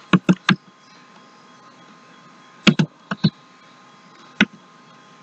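Computer keyboard keystrokes as a password is typed: three quick keystrokes at the start, a cluster of four about two and a half seconds in, and one more near the end.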